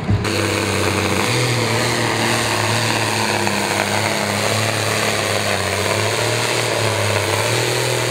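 Ford pulling tractor's diesel engine running flat out at a steady pitch under the load of the weight sled.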